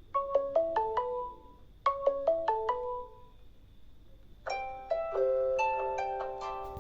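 Samsung Galaxy Tab A 9.7 stock alert tones. A short melody of quickly fading struck notes plays twice. About four and a half seconds in, a fuller phrase with a held low note under a quick melody begins.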